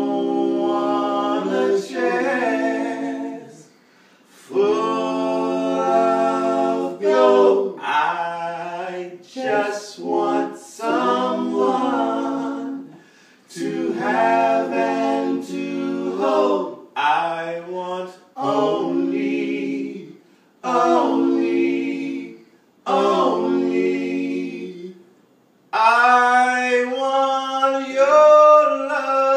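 Several men singing a cappella together: sung phrases with short pauses between them, and a long held note near the end.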